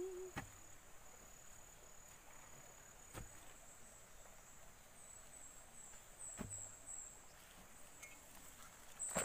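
Faint high-pitched insect trill with runs of quick chirping pulses, broken by a few faint sharp clicks about every three seconds.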